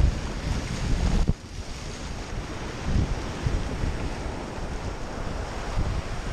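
Sea surf breaking over rocks and churning white water around a kayak, with wind buffeting the camera microphone; the rush dips briefly about a second in, then surges again.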